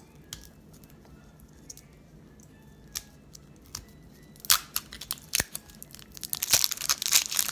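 A few scattered small clicks and taps, then from about four and a half seconds in, toy packaging wrap being torn open and crinkled in a dense run of crackling.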